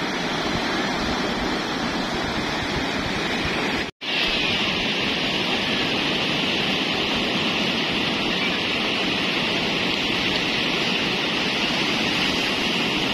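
Ocean surf breaking and washing up a sandy beach, a steady rushing noise. It cuts out for an instant about four seconds in and comes back brighter and hissier.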